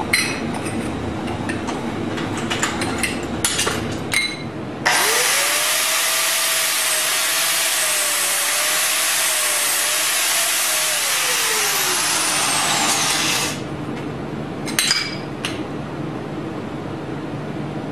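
Electric angle grinder switched on about five seconds in. It runs loud and steady for about eight seconds on aluminium tubing, then is switched off and winds down. Before and after it, the metal tubes clink and knock as they are handled.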